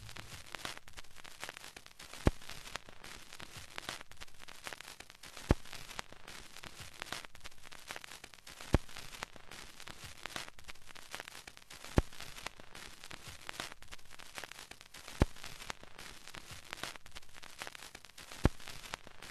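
Faint, steady crackling static with a single sharp pop about every three seconds.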